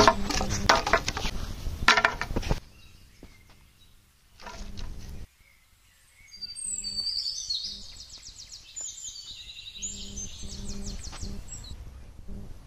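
Dry sticks clattering and rustling as they are picked up and handled on dusty ground. Then, about halfway in, a bird sings a run of quick, high, descending chirps.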